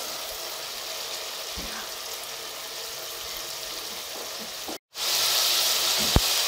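Chopped tomatoes, garlic and whole spices sizzling steadily in ghee in a pot as the masala is sautéed. The sound cuts out briefly near the end and comes back louder, with a single sharp click just after.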